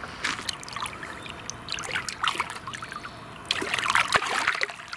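Lake water splashing and trickling in the shallows as a carp is released from the hands, the splashing loudest about three and a half to four and a half seconds in.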